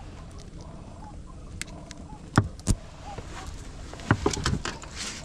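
Several sharp knocks and taps on a small boat as a freshly caught giant freshwater prawn is handled, mostly in the second half. Under them runs a faint steady background with small repeated chirps.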